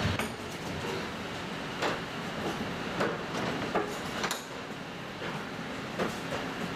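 Tram running noise: a steady rumble with several irregular sharp knocks and clunks.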